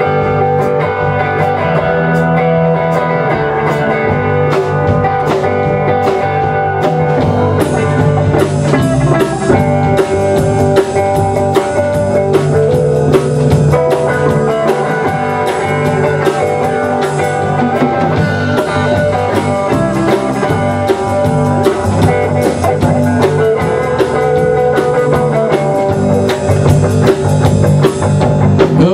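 Live band of two electric guitars and a drum kit playing an instrumental blues-rock passage with no vocals. The cymbals get brighter and busier about eight seconds in.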